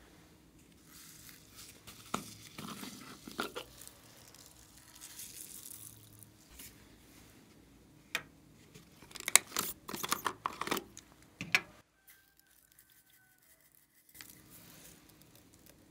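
Hard plastic toy cases being handled and opened: scattered clicks and rustles, then a quick run of sharp clicks and taps about nine to eleven seconds in.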